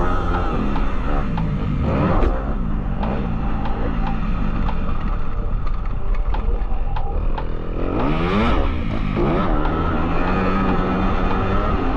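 Motocross bike engine being ridden hard, its revs rising and falling as the rider accelerates and shifts, with sharp sweeps in pitch about two seconds in and again around eight seconds in.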